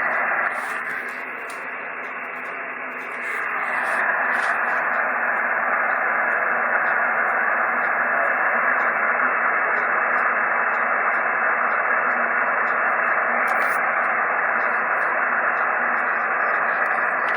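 Steady hiss of band noise from a shortwave receiver in single-sideband mode, confined to a narrow voice-width band. It is somewhat quieter for the first three seconds, then louder and steady.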